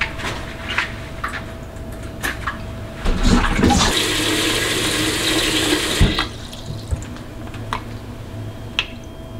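Kitchen mixer tap turned on about three seconds in, water running into an enamel bowl of sweet potatoes for about three seconds, then shut off abruptly. Light clicks and knocks before and after.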